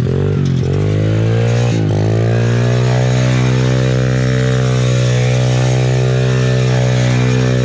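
Small quad ATV engine revving hard as the quad spins circles on sand: the revs drop and climb back twice in the first two seconds, then hold high and steady.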